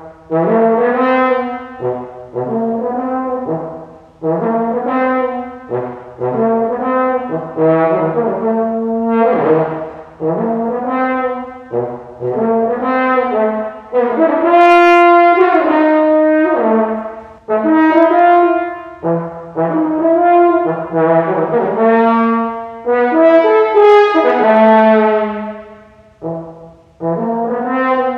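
Unaccompanied French horn playing a melody in short phrases with brief breaks between them; some notes slide up or down in pitch.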